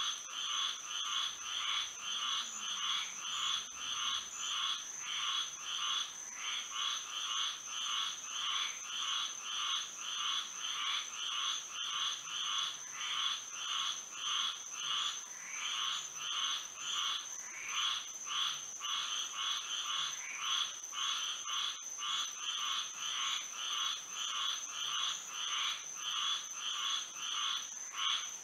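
Chorus of frogs calling at night, many overlapping calls pulsing in a steady rhythm of about two a second, over a continuous high-pitched steady tone.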